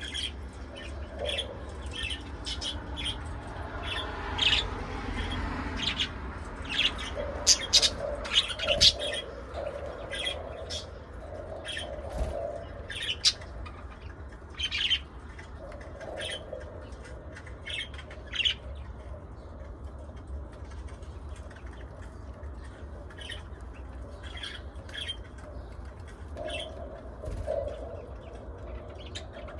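Pet budgerigars and lovebirds chirping and squawking in many short calls, busiest and loudest about a quarter of the way in, over a steady low hum.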